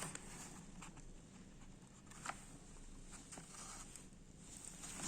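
Faint rustling and small clicks of hands handling a motion detector and its wiring, with one sharper click about two seconds in.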